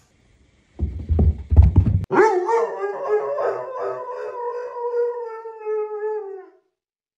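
A Doberman howling: one long, wavering howl lasting about four seconds, sinking slightly in pitch near the end. Just before it there is about a second of loud, low rumbling clatter.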